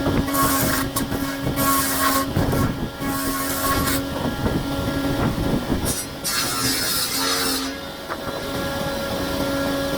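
Woodworking power tool running with a steady whine that drops out now and then, with several spells of hissing cutting noise as it works wood.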